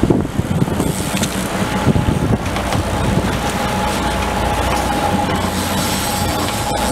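Sportfishing boat's engines running steadily under way, with wind and wake water rushing. A few knocks and clatters come in the first couple of seconds, and a thin steady whine joins about three seconds in.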